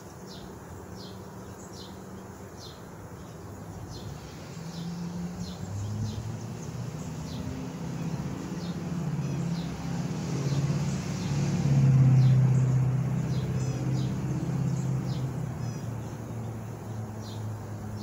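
Honeybees buzzing around the open hive, a wavering hum that swells to its loudest about two-thirds of the way through and then eases off. A small bird chirps repeatedly over it.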